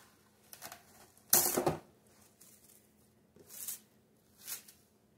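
Plastic cling wrap crinkling and rustling as it is wrapped around a disk of pie dough, in several short bursts, the loudest about a second and a half in.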